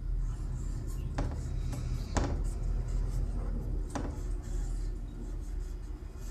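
Marker pen writing on a whiteboard: three short squeaky strokes, the loudest about two seconds in, over a steady low hum.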